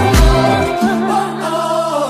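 Background music: a sung gospel-style song with bass and drums; less than a second in, the bass and beat drop out, leaving held chords under the singing.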